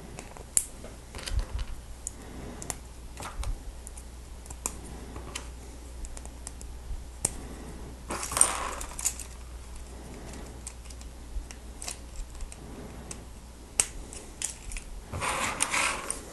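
Plastic Lego Technic pieces clicking and tapping as they are handled and pressed together, in irregular small clicks, with a longer rustling scrape about halfway through and another near the end.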